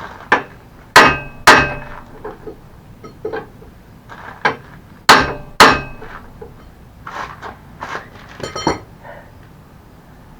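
Hammer blows on a steel hinge pin being driven out of a mobility scooter, a series of irregular sharp metallic strikes, the loudest in two pairs about half a second apart, each with a short ring, and lighter taps near the end. The pin is stuck and barely moving.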